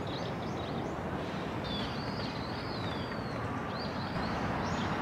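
Birds chirping in short calls, with one longer, slightly falling whistled call about two seconds in, over a steady low outdoor background rumble.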